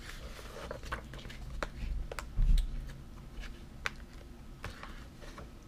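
Light handling noises: scattered small clicks and rustles from a plastic snack wrapper and a paper guide being handled, with one dull thump about two and a half seconds in.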